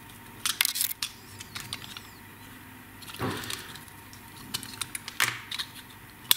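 Small plastic wire-harness connectors being worked loose and pulled from a digital voltmeter-ammeter panel meter by hand: scattered light plastic clicks and the rustle of wires.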